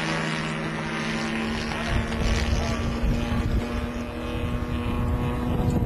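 Radio-controlled model airplane's engine droning steadily in flight overhead. A low rumbling noise joins it about two seconds in.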